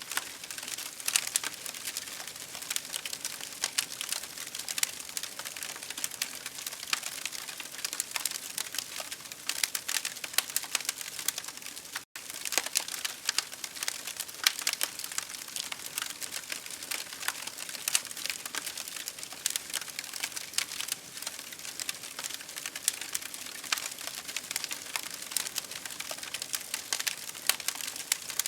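Campfire crackling, with dense, irregular pops and snaps over a steady hiss of rain. The sound drops out for an instant about twelve seconds in.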